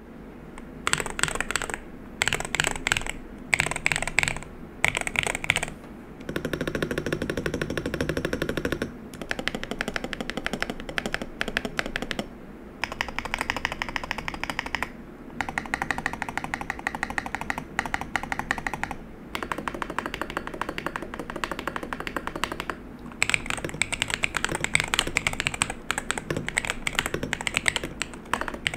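Aula Hero68 mechanical keyboard with Neptune (Leobog Sea Emperor) switches being typed on: fast, dense runs of keystrokes in bursts of a few seconds, with brief pauses between.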